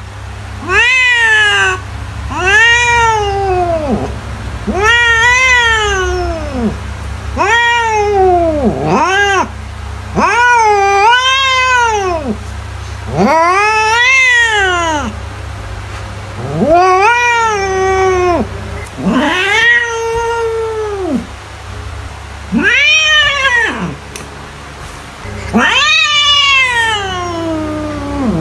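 Domestic cat meowing: about a dozen long, drawn-out calls in a row, each rising and then falling in pitch.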